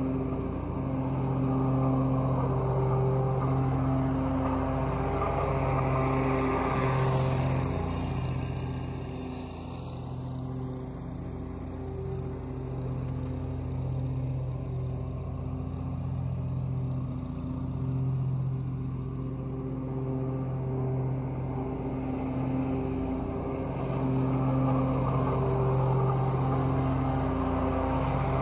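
Grasshopper zero-turn mower's engine and cutting deck running steadily at a constant pitch while it mows and mulches dry leaves. The sound fades somewhat about a third of the way in as the mower moves off, then grows louder again toward the end as it comes back.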